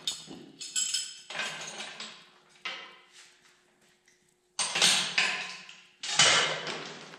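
Metal clanking and clattering: about six sharp hits, each ringing out briefly, the two loudest near the end, as hand tools and metal parts are handled in the shop.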